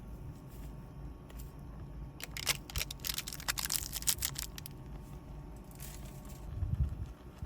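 A burst of crinkling and clicking handling noise starting about two seconds in, over a steady low rumble, with a single low thump near the end.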